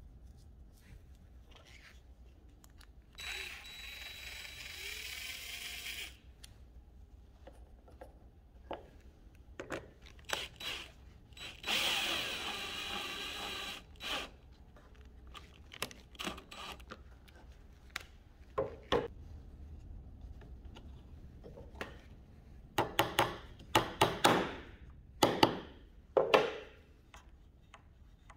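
Cordless screwdriver driving a screw through a plywood trigger piece into a wooden block, running in two spells of about three seconds each with a steady whine. Near the end comes a quick string of sharp wooden clicks and knocks, the loudest sounds here.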